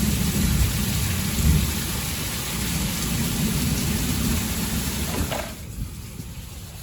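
Heavy thunderstorm downpour: a loud, steady rush of rain with a deep low rumble under it. About five seconds in the sound drops off sharply, leaving a quieter patter of rain.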